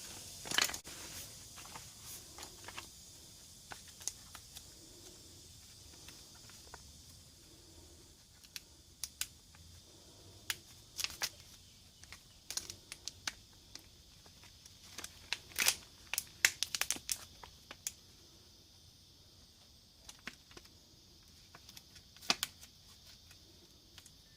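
Handling of a tyre plug repair kit: scattered crinkles, rustles and small clicks as parts and packaging are picked up and worked by hand, over a faint steady hiss.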